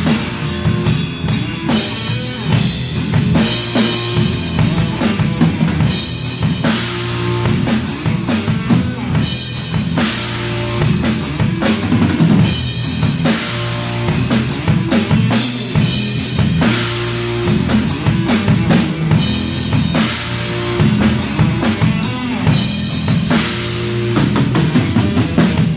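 A rock band playing loudly: drum kit with bass drum, snare and cymbals over steady low bass notes.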